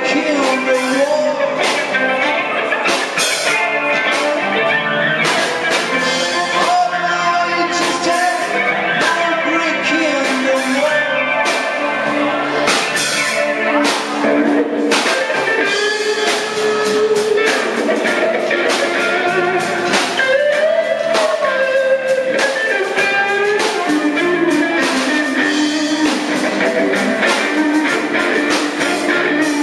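Small rock band playing live: electric guitar, bass guitar, keyboards and drum kit, with guitar notes bending in pitch over a steady beat.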